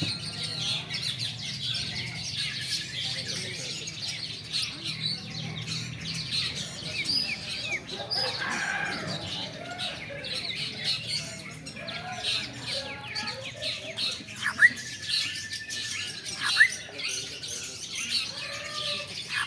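Long-tailed shrikes (cendet) in cages singing together: a dense, continuous chorus of rapid high chirps and trills. A few louder, sharp whistled notes stand out near the end.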